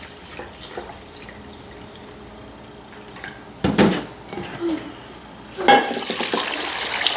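Apple cider poured from a plastic jug into a glass measuring cup, with a short knock about halfway through. Near the end comes a louder splashing pour lasting about two seconds.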